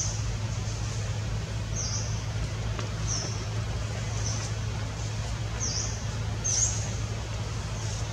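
A small bird chirping: short, high, falling chirps repeating roughly once a second, over a steady low hum.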